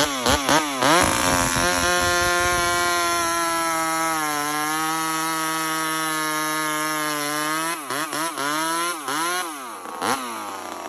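Homelite XL76 two-stroke chainsaw revved a few times, then held at full throttle while cutting through a log, its pitch dipping slightly under load. Near the end the throttle is blipped a few times and let off, the engine dropping back toward idle.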